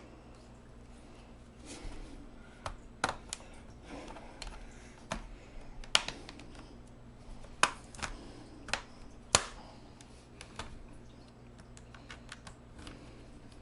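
Plastic snap clips of a laptop's base case popping loose as it is pried apart along the edge: an irregular series of sharp clicks and snaps, the loudest about six and nine seconds in.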